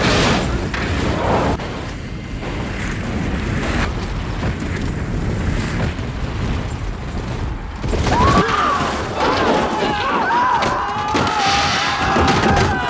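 Film sound of an airliner crash-landing in snow: a continuous loud rumbling roar, with passengers screaming over it from about eight seconds in.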